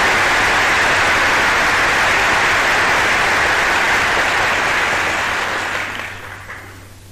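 Congressional audience applauding loudly and steadily, dying away over the last second or so, with a low steady hum from the 1941 recording underneath.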